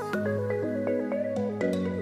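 Background music: a stepping melody of short notes over held low notes.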